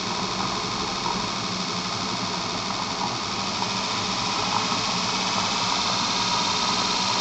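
Electric motor test rig running: a steady hum with hiss, growing slightly louder as the supply frequency is raised and the induction motor speeds up.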